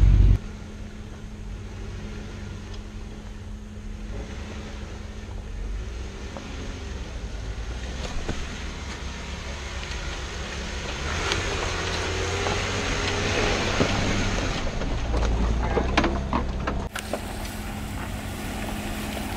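Off-road 4x4 engine running at low revs as the vehicle crawls over rough trail, with tyre and wind noise. The noise swells for a few seconds in the middle, then the sound changes abruptly near the end.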